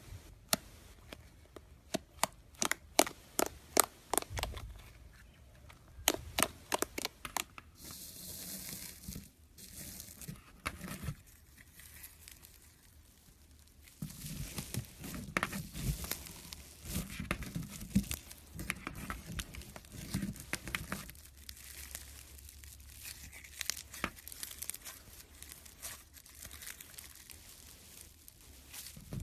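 Slime being handled: a run of sharp clicking pops for the first several seconds, then softer crackling and squishing as it is stretched and pressed.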